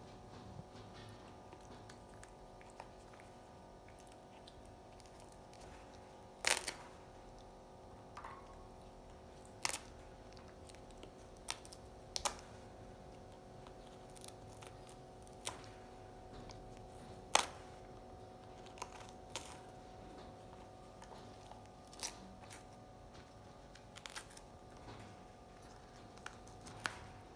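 Baby monkey biting and chewing a green lotus seed pod: sharp crunches and tearing every few seconds, the loudest about halfway through, over a steady faint hum.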